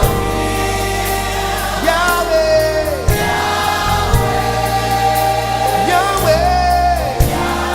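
A gospel choir and worship band performing live: long sung notes that bend in pitch over sustained bass and keyboard with drum hits.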